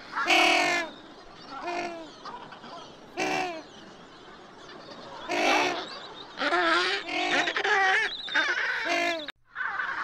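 African penguins calling: a few short, spaced-out calls, then a longer run of calls in the second half that breaks off abruptly near the end.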